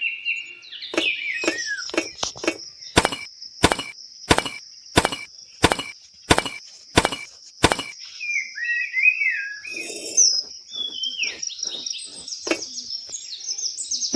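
Birds chirping over a steady high-pitched whine, with a run of about ten evenly spaced sharp taps, roughly one every two-thirds of a second, in the middle.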